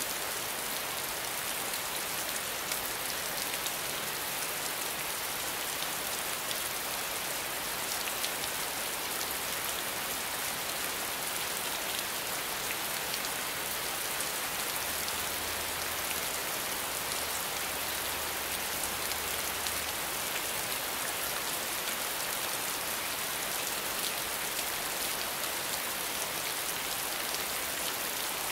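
Steady rainfall: an even hiss of rain with scattered sharper taps of single drops landing.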